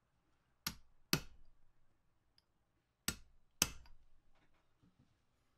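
Two pairs of sharp metallic clicks, a second and a half apart, followed by a few faint ticks: small metal parts of an Enco hex-turret tailstock's indexing mechanism being handled and seated by hand during reassembly.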